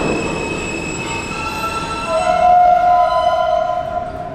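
Subway train braking into a station and slowing to a stop, with wheel and brake squeal. Its electric drive gives off several steady whining tones; a lower, louder whine comes in about two seconds in, then fades as the train halts.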